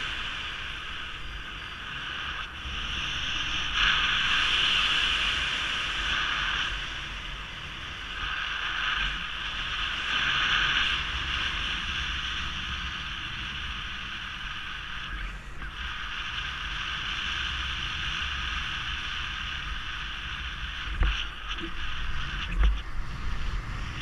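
Airflow rushing past the camera and microphone during paraglider flight, a steady hiss that swells and eases every few seconds with low buffeting. A few short low bumps come near the end.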